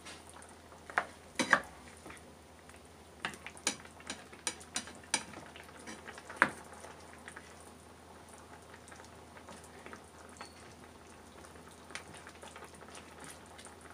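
A spatula stirring a pan of simmering chicken stew in tomato sauce, knocking and scraping against the pan with a scatter of sharp clicks in the first half, over a low, steady bubbling of the sauce.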